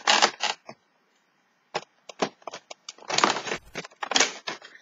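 Cardboard advent calendar door being pushed open and torn, with crackling and tapping as the small item inside is pulled out and handled. The sounds come as short bursts and clicks, with a brief pause about a second in.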